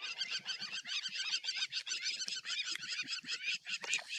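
Many birds chirping and chattering at once, a dense chorus of short, high, overlapping calls.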